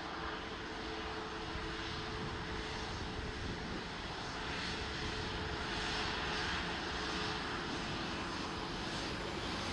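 Airliner engines running: a steady, wide rush with a faint whine, growing slowly louder.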